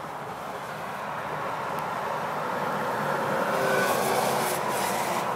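A vehicle passing on the road outside: a steady hiss of tyre and road noise swells to a peak about four seconds in with a faint whine, then begins to fade.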